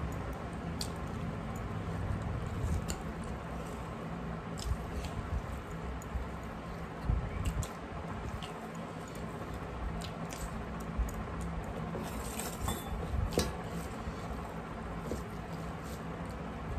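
Close-up eating sounds: rice and curry squished and mixed by hand on metal plates, with chewing and scattered small clicks.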